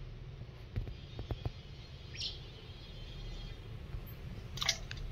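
Pond-bank ambience: a steady low rumble with a few light clicks about a second in, and a couple of short bird chirps, one about two seconds in and a sharper one near the end.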